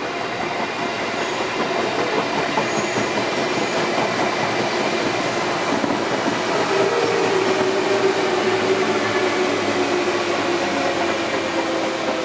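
A train running past: a steady rail rumble that grows louder toward the middle, with a sustained tone coming in about seven seconds in.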